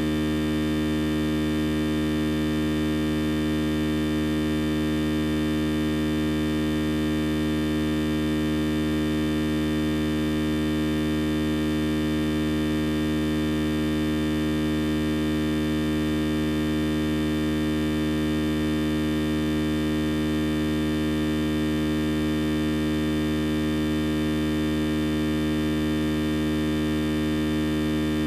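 Steady electrical hum and buzz with many overtones over a faint hiss, unchanging in pitch and level.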